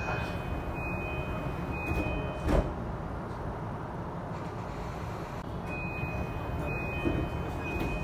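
JR East E233-8000 series train's three-part door chime sounding as the doors close, ending in a thud as the door leaves meet about two and a half seconds in. Near the end the three-part chime starts again for the next door operation, over the steady low hum of the train.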